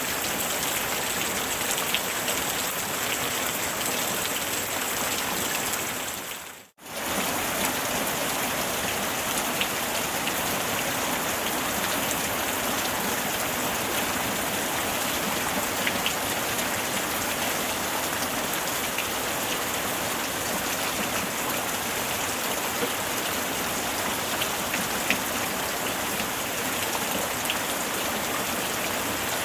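Steady rain falling, a dense even patter with occasional sharper drop ticks. The sound briefly fades out to near silence and back about seven seconds in.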